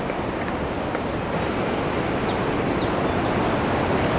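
Steady rushing roar of the Niagara Falls and river, growing a little louder near the end, with a few faint high chirps.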